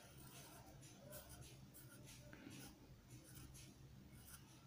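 Faint strokes of a Sharpie felt-tip marker drawing on paper: a run of short, scratchy pen strokes.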